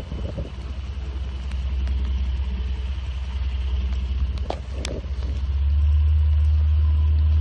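An engine running with a steady low drone, growing louder about five and a half seconds in; a couple of short knocks come just before that.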